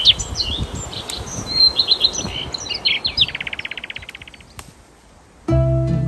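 Small songbirds chirping, then a fast, even trill lasting about a second, over low rustling. Acoustic guitar music comes in near the end.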